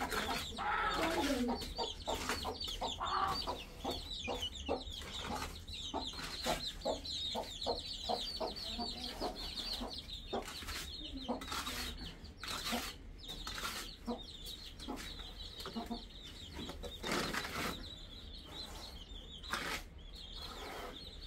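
Chickens clucking amid dense high-pitched chirping, with scattered short knocks.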